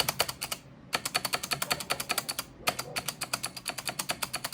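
Mechanical keyboard keys pressed in rapid succession, the plastic keycaps clacking in three quick runs with two short pauses.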